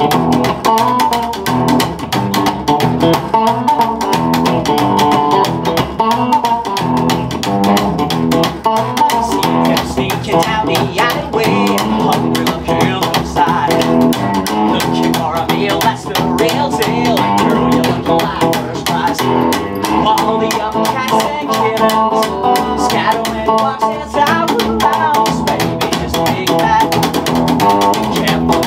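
Electric guitar and upright double bass playing an instrumental passage together, with a busy, steady run of plucked notes.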